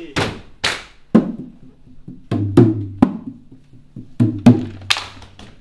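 Body percussion played as music: a rhythmic run of sharp claps, slaps and knocks, with a low held note sounding under some of the strikes.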